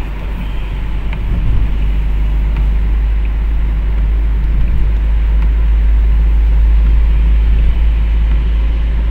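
Car interior road noise: a steady low rumble of engine and tyres on a wet road as the car accelerates, growing gradually louder.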